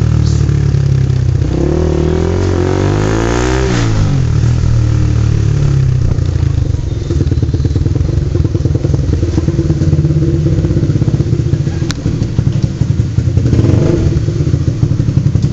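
Honda CBR150R's single-cylinder engine through an NJT Racing tri-oval exhaust with the dB killer removed, running at low revs. The pitch dips and rises over the first few seconds, then settles into a steady, pulsing idle.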